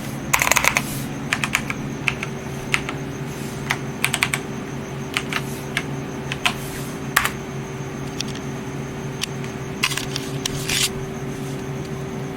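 Typing on a computer keyboard to log in: irregular keystroke clicks with quick runs of keys just after the start and again about ten seconds in. A steady hum runs underneath.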